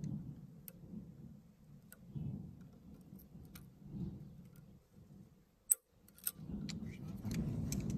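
Sharp metallic clicks and taps of a U-joint being pressed into a driveshaft yoke, with two louder clicks near the end, over a low, uneven rumble.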